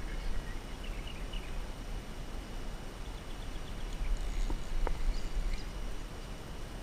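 Quiet river ambience: faint bird chirps over a low steady rumble, with two light clicks a little before five seconds in.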